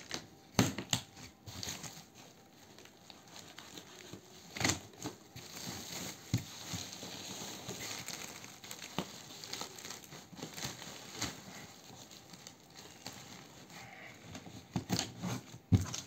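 Packaging handled by hand: a woven plastic sack and a taped cardboard box crinkling and rustling, with scattered sharp clicks and taps and a steadier rustle through the middle.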